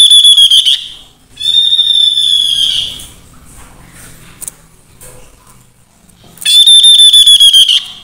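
Tepus lurik babbler calling: three loud, high whistled notes, each held for about a second and a half with a fast rapid pulsing through it. The first ends just under a second in, the second comes about two seconds in, and the third comes near the end after a quiet pause.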